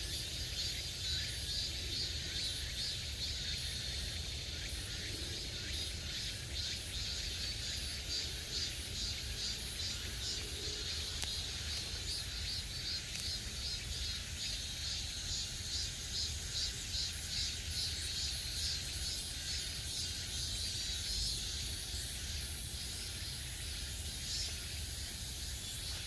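Cicadas singing in the forest, a continuous pulsing high-pitched buzz that swells and eases, over a steady low rumble.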